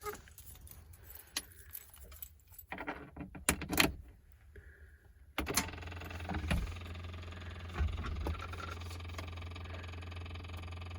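Keys jangling and clicking, then a vehicle engine starts about halfway through and settles into a steady idle.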